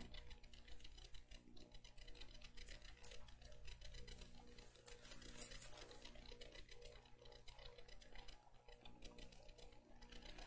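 Near silence: room tone with a steady low hum and faint, irregular ticks and clicks.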